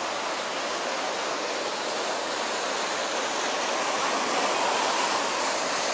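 Steady rushing noise of car tyres on a wet road mixed with the splashing of a street fountain, growing a little louder in the second half.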